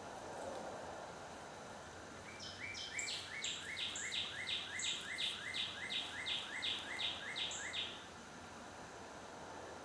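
A songbird singing a fast run of identical repeated phrases, about three a second, that lasts about five seconds, over the steady hiss of the woods.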